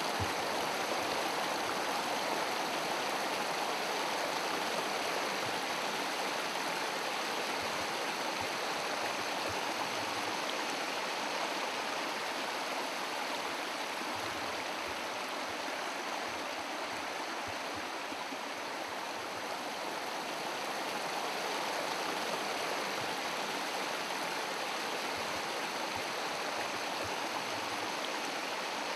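Rocky stream running over stones and small cascades: a steady, unbroken rush of water.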